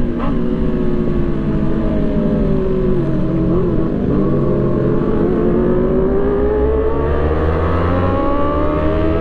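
Sport motorcycle engine heard from the rider's seat, with wind rush. The revs ease off over the first three seconds or so, then climb steadily as the bike accelerates.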